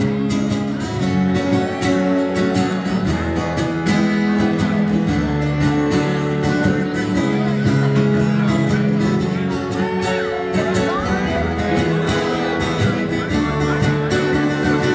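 Acoustic guitars strumming chords in a live unplugged performance of a rock song.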